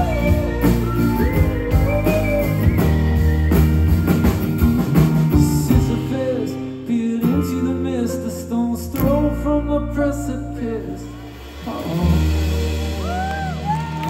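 Live band playing a song, heard from the audience: guitars, bass and drums with a sung melody. The drum strikes thin out about halfway through, leaving held chords as the song winds down.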